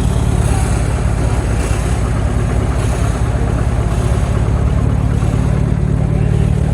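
Vintage tractor engine running steadily under power, a loud low engine sound.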